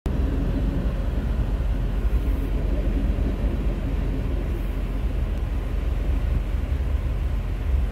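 Freight train of hopper cars and boxcars passing over a road crossing, its wheels running on the rails in a steady, unbroken rumble, heard from inside a car.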